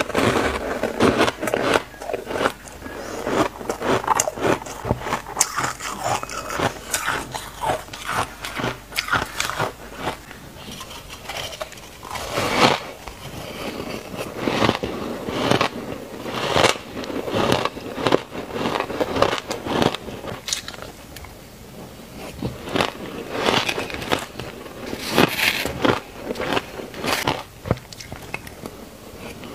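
Frozen ice being bitten and chewed: a run of sharp, irregular crunches.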